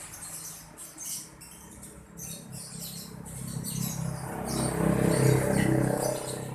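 A dove cooing: a low, throaty call that swells about four seconds in and fades near the end, preceded by faint, short high-pitched ticks or chirps.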